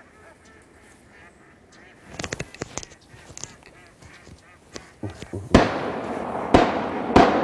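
Duck quacking in quick runs, with a loud flurry about two seconds in. Then three shotgun shots in the last two seconds, each trailing a long echo.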